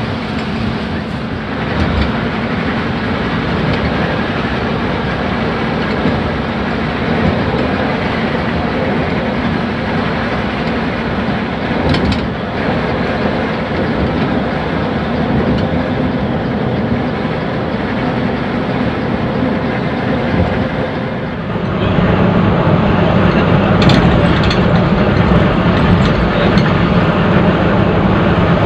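Intercity coach heard from inside the cabin while cruising on a wet highway: a steady drone of engine plus tyre and road noise. About three-quarters of the way through it gets louder, with a stronger, deeper engine note.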